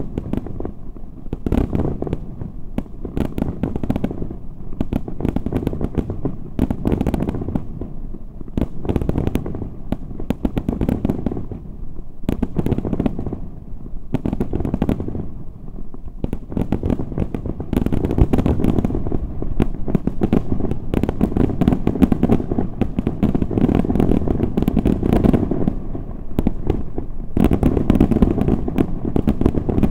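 Daytime salute fireworks: aerial shells and firecrackers bursting in a rapid, unbroken barrage of bangs and cracks, heavier from about 18 seconds in.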